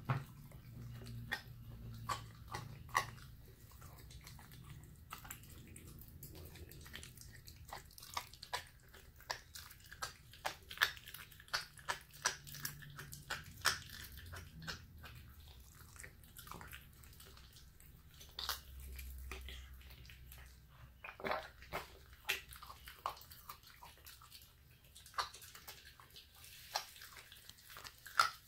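Young puppy chewing a crushed raw bone-in chicken wing: irregular wet crunches and clicks of teeth on meat and bone, coming in quick runs of bites with short pauses between them.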